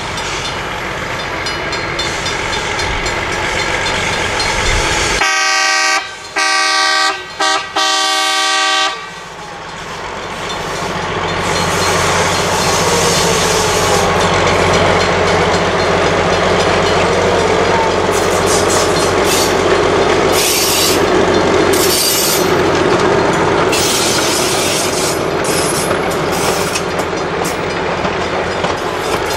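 A train horn sounds four blasts, long, long, very short, long, in the pattern used for a road crossing. The train's rumble then grows louder as it draws near and runs past.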